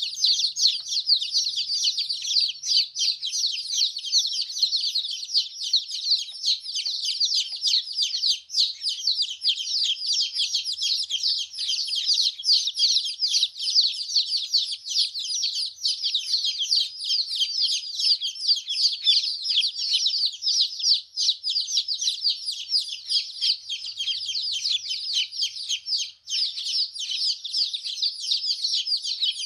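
A group of baby chickens peeping nonstop: many short, high, falling chirps overlapping one another.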